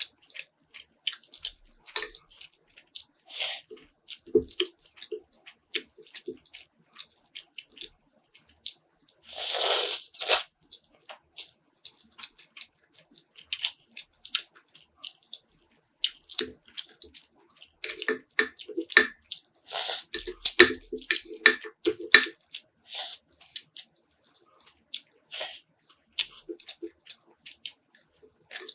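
Close-miked eating sounds: wet mouth clicks, lip smacking and chewing throughout. About nine seconds in comes one long, loud slurp, typical of sucking up noodles, and there are clusters of busier chewing about four seconds in and again from about eighteen to twenty-two seconds.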